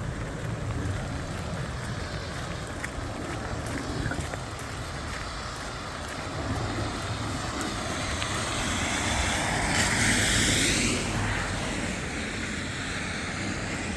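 A car passing on a wet road: its tyre hiss swells to a peak about ten seconds in, then fades. A steady low rumble runs underneath.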